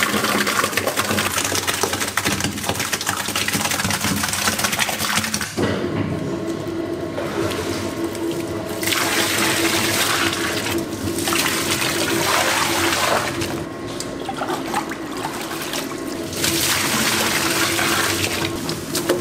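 Wet kimchi seasoning slurry pouring and splashing into a stainless steel paddle-mixer trough. About five seconds in, a steady hum joins it, and the sloshing comes in surges as the paddles turn through the mix.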